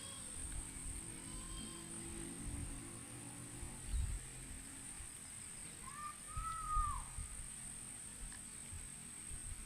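Insects droning steadily on one high, thin note, with a single bird call that rises and falls about six seconds in. Low rumbling bumps on the microphone near four and seven seconds are the loudest sounds.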